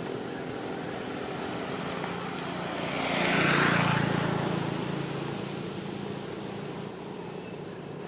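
A motor vehicle passing by, swelling to its loudest about three and a half seconds in and then fading, over a steady high insect drone.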